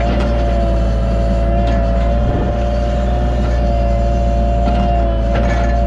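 Cat 303.5 mini excavator's diesel engine running steadily with a constant hydraulic whine, a few brief knocks over it, as it works backfilling dirt.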